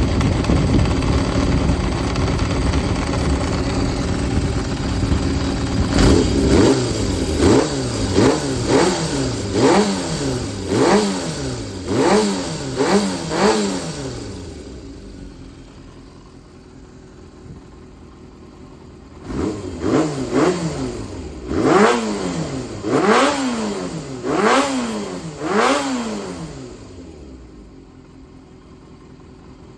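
Kawasaki Zephyr 400 (Zephyr χ) air-cooled inline-four engine running off the bike, its throttle blipped in quick revs that rise and fall, a run of about eight to ten starting some six seconds in and about six more starting near twenty seconds, settling back to a low idle between and after. The seller lists it as running without abnormal noise.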